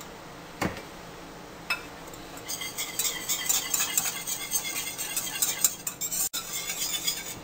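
Wire whisk beating a creamy mayonnaise dressing in a mixing bowl, its wires rapidly clinking and scraping against the bowl's sides from about two and a half seconds in until shortly before the end. Two single knocks come first, in the first two seconds.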